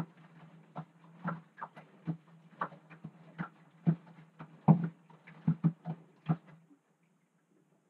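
Front-loading washing machine tumbling a wash load: wet clothes and water slosh and thud irregularly in the turning drum over a steady motor hum. The drum stops about seven seconds in and the sound ends.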